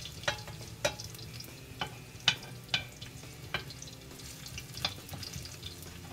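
Smashed garlic cloves sizzling as they fry in olive oil in a skillet, with a metal spoon clinking and scraping against the pan about seven times as it stirs them.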